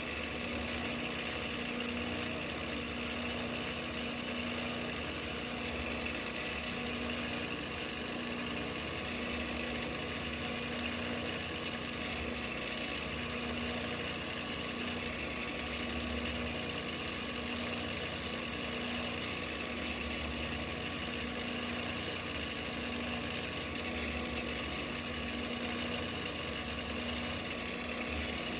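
Mill-drill motor and spindle running steadily at an even pitch while a number 25 drill bores a hole for a 10-24 set screw.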